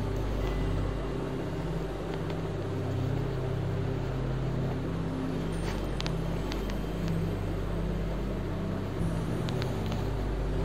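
A steady low mechanical rumble and hum, with a few faint light clicks about six seconds in and again near the end.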